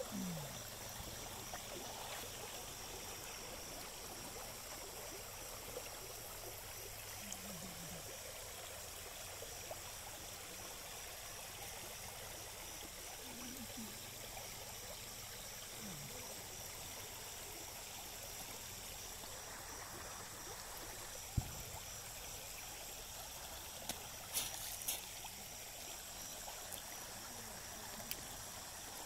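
Stream water flowing steadily past a wooden board and a fishing net set in the current, with a few sharp clicks about two-thirds of the way through and near the end.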